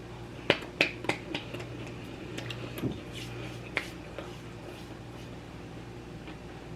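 Eating sounds: a quick run of sharp clicks and taps from utensils on food containers, then a few softer ones, over a steady low room hum.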